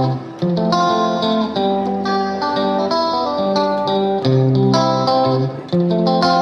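Background music led by a plucked guitar, playing a steady run of notes.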